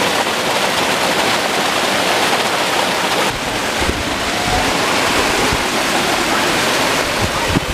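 Steady rush of a small waterfall pouring over rocks, a dense even hiss of falling water; about three seconds in it drops a little in level.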